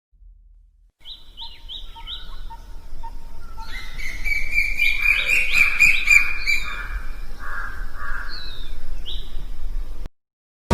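Birds chirping and singing: short repeated chirps, joined about four seconds in by a steady high trill, over a low rumble. The sound cuts off suddenly just before the end.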